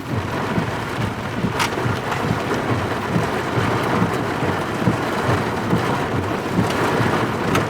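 Steady heavy rain on a vehicle during a severe thunderstorm, with a low rumble underneath and a couple of sharp ticks, one about a second and a half in and one near the end.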